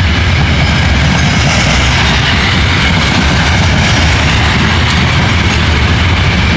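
CSX freight train's cars rolling past close by: loud, steady noise of steel wheels on rail.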